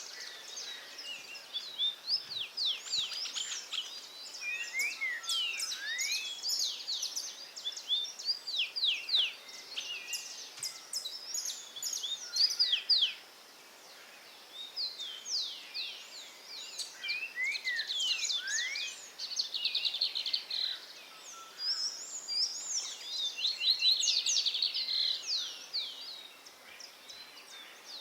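Several songbirds singing together, a busy chorus of quick downward-sliding whistled notes and short rapid trills, over a faint background hiss. The singing drops out briefly about 13 seconds in.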